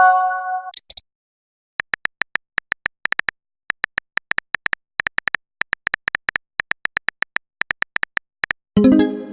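Chat-app sound effects: runs of quick, soft phone-keyboard typing clicks. A short tonal message alert with a pair of quick high chirps sounds at the start, and a lower alert near the end.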